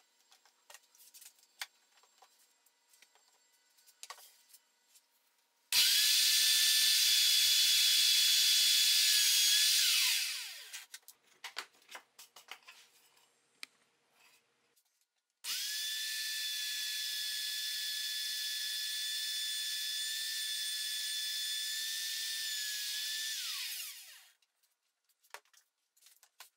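Router with a keyhole slot bit cutting keyhole slots into a pine board held in a jig: the motor runs twice at a steady high pitch, a few seconds the first time and longer the second, each run ending with the pitch falling as it spins down. Light clicks and knocks of clamps and the board being handled come between the runs.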